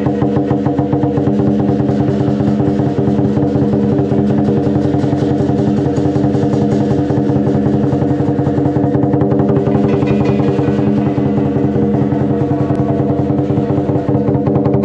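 Lion dance percussion: a lion drum beaten in a fast, even rhythm with cymbals and gong, their ringing sustained underneath.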